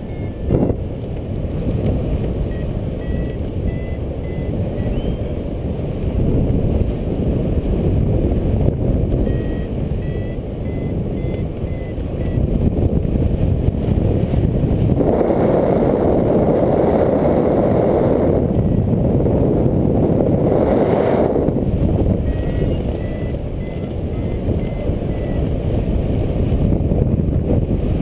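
Wind rushing over the microphone of a hang glider in flight, swelling louder for several seconds about halfway through. Short, faint beeps from the variometer come and go through it, the tones that signal the glider is climbing in rising air.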